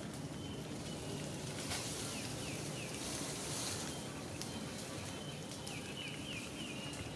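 Outdoor ambience: a steady low hum with faint runs of three or four short, falling high chirps, about two seconds in and again around six seconds.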